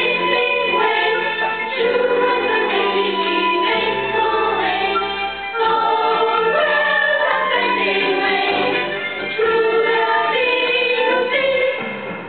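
A group of voices singing together in choir style, holding long notes that move from chord to chord. The singing gets quieter just before the end.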